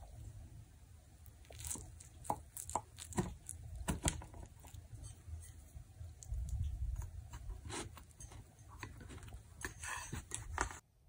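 Kitchen knife slicing through a baked apple cake on a wooden board: crisp crunches of the crust and sharp knocks of the blade against the board, many times over a low handling rumble.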